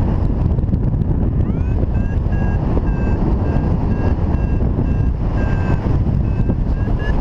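Wind rushing over the microphone in flight. From about a second and a half in, a paragliding variometer beeps in short, even pips about twice a second, its climb tone signalling that the glider is rising in lift.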